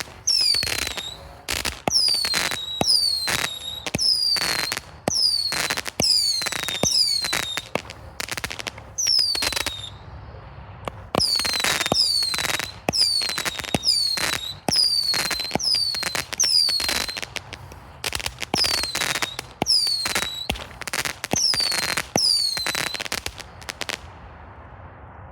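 Shogun 'Fear of Missing Out' 81-shot mine cake firing, a shot every half-second to second, most of them followed by a short whistle that falls in pitch, with crackle. There is a short pause about ten seconds in, and the firing stops about a second before the end.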